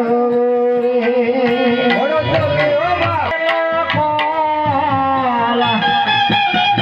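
Indian folk music: a held, wavering melody line over steady drum beats.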